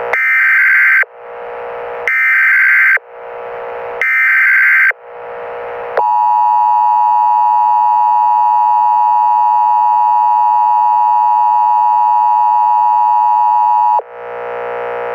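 Emergency Alert System alert opening: three one-second bursts of SAME header data tones about two seconds apart, each followed by a short hiss, then the steady two-tone EAS attention signal held for about eight seconds, giving way to hiss near the end.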